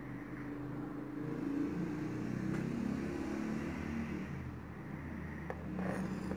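A motor vehicle engine running, its pitch wavering up and down and loudest in the middle, with a steady low hum under it.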